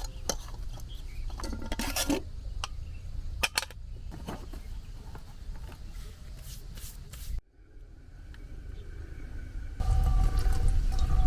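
Camp cookware clinking and knocking as it is handled and set out. Near the end a louder steady rushing noise with a faint hum starts suddenly.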